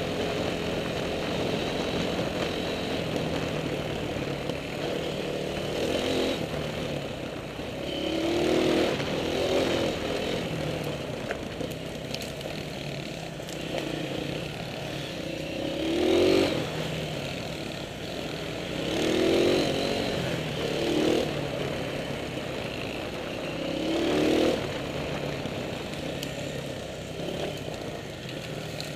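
Dirt bike engine running along at low speed, a steady low note with about five louder surges as the throttle is opened and closed again.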